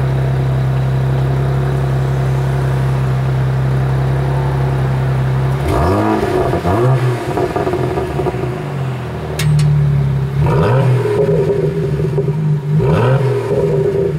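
BMW 1M's twin-turbo inline-six through an Akrapovic exhaust, idling steadily, then blipped in several quick revs that rise and fall back to idle. A couple of sharp cracks come between the revs.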